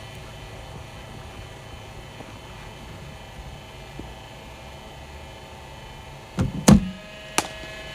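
A cricket ball is fired and played at the bowling machine: a quick cluster of sharp knocks about six and a half seconds in, the middle one loudest with a dull thud, then a single crack just under a second later, over a steady background hum.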